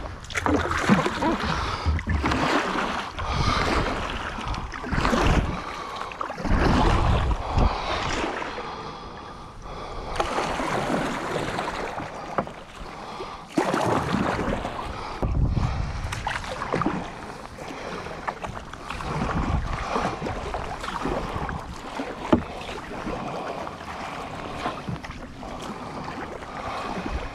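Kayak paddle strokes splashing in the water, a stroke every second or two, with some wind on the microphone.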